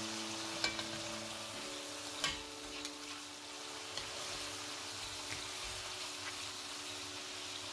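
Beef steaks sizzling steadily in oil in a nonstick frying pan, with a few sharp clicks of metal tongs against the pan as the steaks are turned, the loudest about two seconds in.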